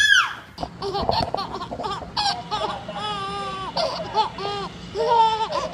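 Babies laughing: a steady string of short, high-pitched laughs and giggles.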